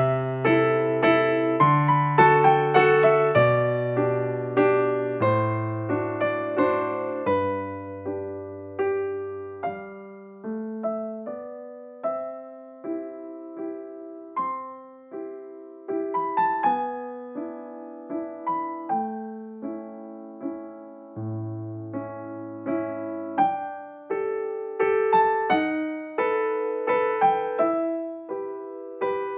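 Background piano music: a slow, gentle melody of struck notes, each fading away, over occasional low bass notes.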